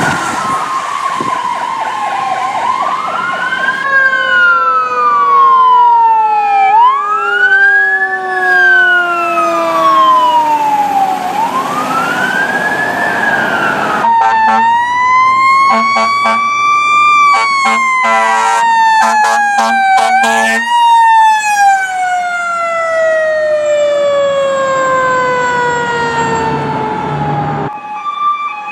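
Fire truck sirens: an electronic siren wailing up and down every few seconds over a mechanical siren winding down in a long falling pitch. Later a slow rise and fall of siren with blasts of air horn in the middle.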